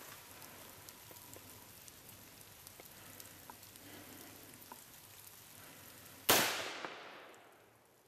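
A single gunshot about six seconds in, sudden and loud, its report ringing out and fading away over about a second and a half.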